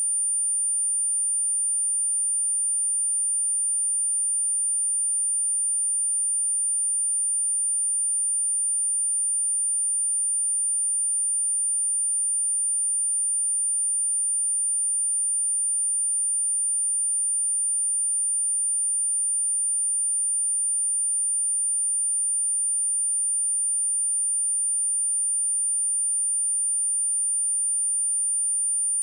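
A single steady, high-pitched pure sine tone at 9197 Hz, a speaker test signal held unchanged throughout.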